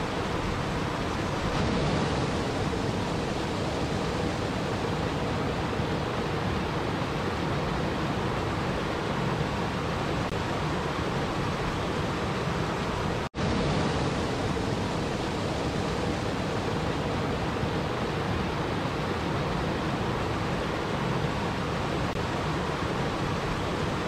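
Small waterfall pouring over boulders into a river: a steady rush of falling and splashing water. It cuts out for an instant about halfway through.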